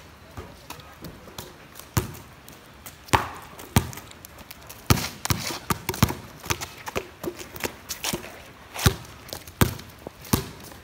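Basketball bouncing on a wet concrete court while being dribbled: a run of sharp, irregular bounces, with footsteps on the wet surface in between.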